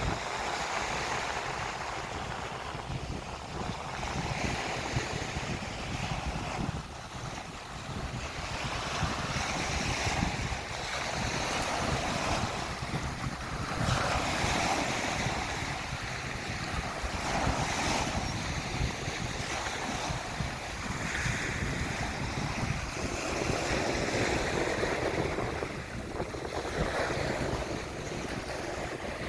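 Small waves breaking and washing up a beach, swelling and easing every few seconds, with wind buffeting the microphone.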